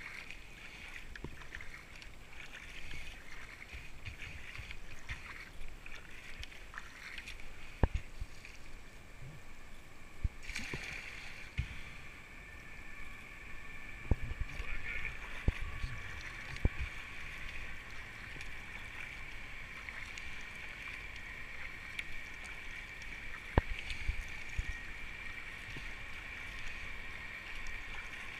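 Paddling a racing kayak downriver: water washing along the hull with the paddle strokes, and a few sharp knocks. A steady high hiss sets in about ten seconds in.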